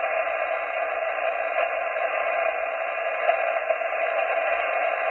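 Steady static hiss from an amateur radio transceiver receiving on single sideband, held within a narrow voice-width passband, with no station answering on the frequency.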